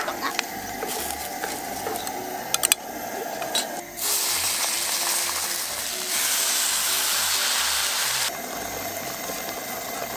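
Water poured into a hot shallow Dutch oven of frying rice, sausage and tomato, sizzling and hissing loudly for about four seconds from about four seconds in, then settling to a softer hiss. Before that, a few light clicks and knocks of kitchen things being handled.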